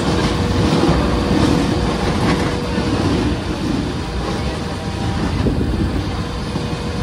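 Mumbai suburban electric local train running: a steady rumble and rattle with a constant faint hum.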